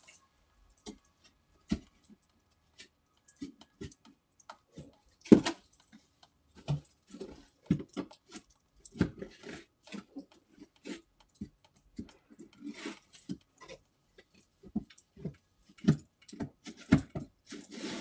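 A dog barking in short, irregular barks, many times over.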